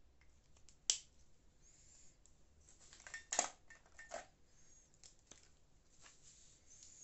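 Felt-tip marker caps clicking off and on, with markers and paper being handled on a cutting mat. There is a sharp click about a second in, then a louder cluster of clicks a little past the middle and one more shortly after.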